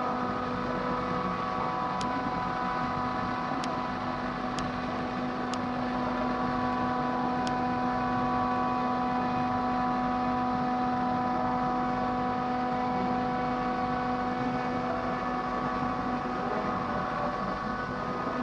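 Okuma CNC milling machine running, a steady whine made of several tones held at a constant pitch, with five sharp ticks in the first half.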